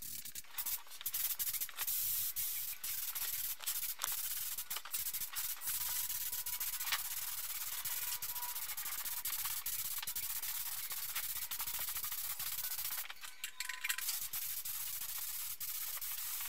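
DeVilbiss FLG 5 gravity-feed spray gun hissing steadily as it sprays paint, dipping briefly about thirteen seconds in.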